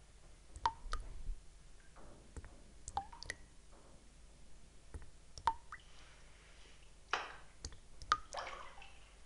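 Water drops falling into water one at a time, each a sharp plink with a short ringing tone, about every two to three seconds. There is a brief, noisier splash-like rush near the end.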